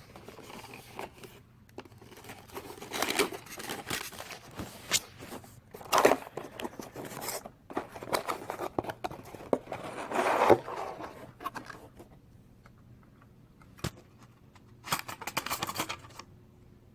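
Packaging of a stock CPU heatsink being handled and opened: irregular bursts of crinkling, scraping and tearing of plastic and cardboard, with quieter stretches between them and a single sharp click about two-thirds of the way through.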